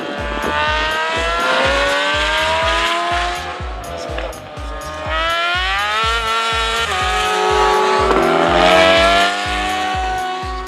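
Racing sidecar engines at high revs, their pitch climbing under acceleration, dropping at gear changes and climbing again, over background music with a steady beat.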